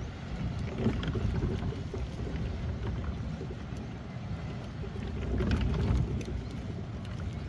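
Seaside ambience out over open water: a low, rough wind rumble on the microphone mixed with water sounds. It swells louder about a second in and again around five and a half seconds.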